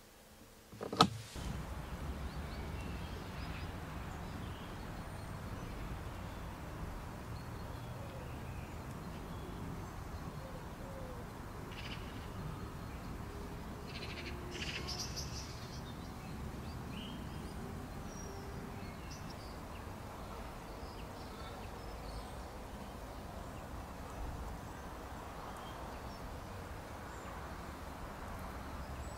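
A single sharp click about a second in, then steady outdoor ambience: a low rumble with occasional faint bird chirps and calls.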